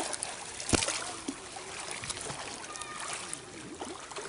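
Water splashing and sloshing right at a waterproof camera held at the surface as a child swims past, with irregular sharp clicks and pops, the loudest just under a second in.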